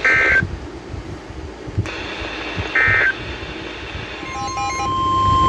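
NOAA Weather Radio broadcast between warnings: two short bursts of SAME digital data tones about two and a half seconds apart, over a hissy radio background. A steady 1050 Hz weather radio alert tone begins about four seconds in, signalling the next warning.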